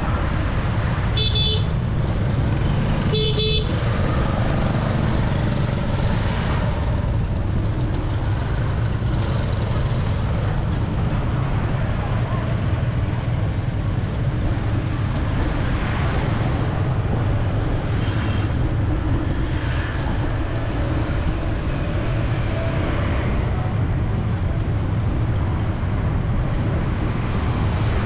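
Steady road traffic rumble heard from a bicycle in city streets, with two short vehicle horn honks about one and three seconds in.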